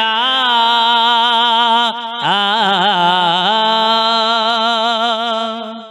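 A man singing a naat, an Islamic devotional song, drawing out long ornamented notes with a wavering vibrato and no words. His voice breaks off briefly about two seconds in, then resumes and fades away near the end.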